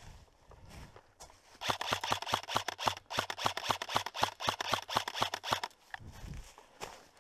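Airsoft rifle firing a rapid string of sharp shots for about four seconds, starting between one and two seconds in. A dull low thump follows near the end.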